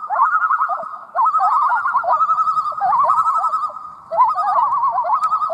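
A pair of common loons giving tremolo calls, rapid wavering laugh-like notes overlapping, in three bouts with short breaks about a second in and near four seconds. The tremolo is the loons' alarm call, raised here at a threat to their chick, such as an eagle overhead.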